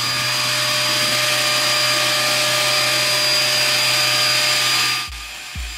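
Flowbee vacuum haircutter running on a 2-gallon wet/dry vac: a steady loud rush of suction with a few fixed whining tones and a low steady hum. It cuts off suddenly about five seconds in and gives way to music with a low thumping beat.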